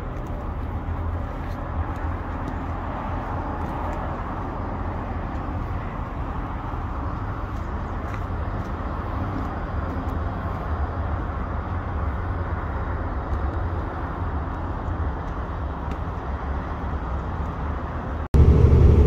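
Diesel semi truck idling with a steady low rumble. Near the end it cuts suddenly to the much louder, deeper engine and road rumble heard inside the truck's cab while it drives.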